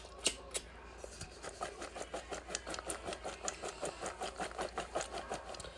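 Popcorn being shaken with its seasoning in a container: a quick, even rattle of about five shakes a second, after a couple of sharp clicks.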